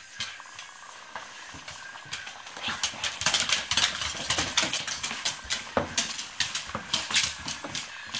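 A dog's claws clicking and skittering on a wooden floor as it moves about excitedly, with quick small clinks and clatters, starting about three seconds in.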